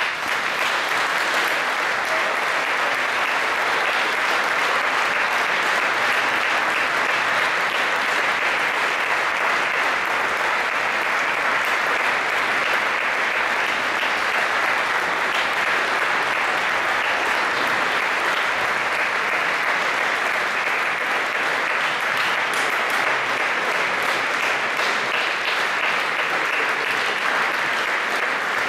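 Concert audience applauding, breaking out all at once and holding steady and full.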